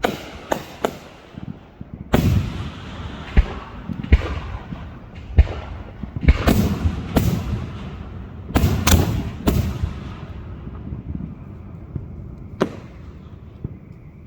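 Aerial firework shells bursting in a rapid, uneven series of booming reports, some in quick pairs and triples, each trailing off into a lingering rumble; a last single sharp burst comes near the end.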